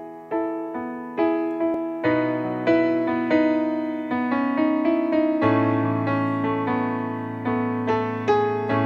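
Music: a piano playing slow chords, a new note or chord struck about every second and left to ring out.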